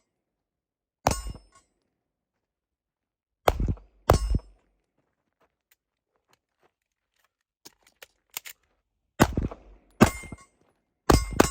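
Sharp metallic clacks from the steel 1911 pistol being handled, each with a brief ring: one about a second in, a quick pair around the middle, a few light clicks, then three more near the end.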